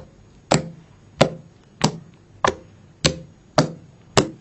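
Fluffy shampoo slime pressed rhythmically with the fingertips, giving a sharp squish with each press, seven evenly spaced presses a little over half a second apart.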